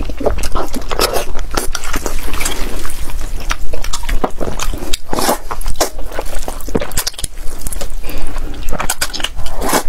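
Close-miked wet eating sounds: chewing of soft, gelatinous braised pork skin with many short sticky clicks and squelches, then slurping of soy-sauce glass noodles into the mouth.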